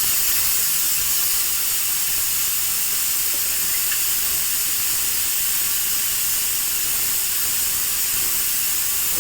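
Whole spices sizzling in hot oil in a pan: a steady, loud hiss.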